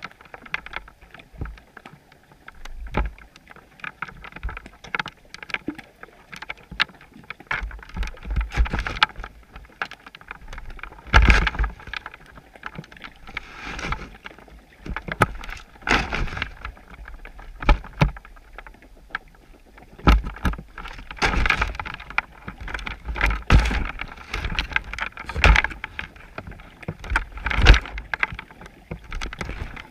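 Underwater sound picked up through a GoPro's waterproof housing on a chum pot: irregular muffled knocks and clicks with surges of water noise, swelling every couple of seconds from about a quarter of the way in.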